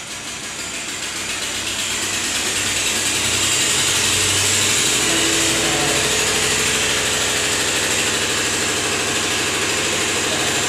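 Loud, rapid mechanical clattering, like a machine or gear train running. It grows louder over the first few seconds and then holds steady.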